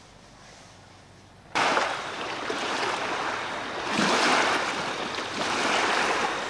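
Small waves washing up on a sandy, rock-lined lakeshore. The rushing wash starts abruptly about a second and a half in and swells every couple of seconds.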